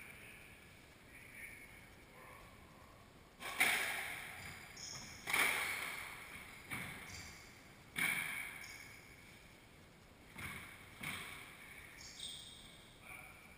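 Squash ball cracking off racquets and the court walls, about eight sharp hits one to two seconds apart, each ringing on in the enclosed court. Short high squeaks of sneakers on the hardwood floor come between the hits.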